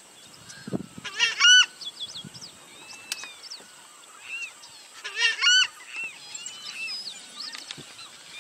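Southern screamers calling: loud two-note honking calls, one pair about a second in and another about five seconds in. Small birds chirp faintly throughout.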